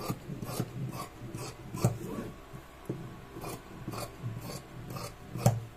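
Scissors cutting through cloth on a table, a steady run of snips about two a second.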